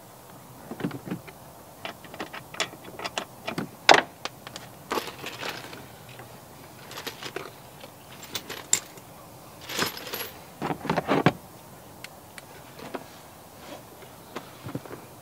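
Irregular clicks, knocks and short rattles of hands and small parts being handled under a vehicle's dashboard. The sharpest knock comes about four seconds in, and a busier cluster of rattles comes around ten to eleven seconds in.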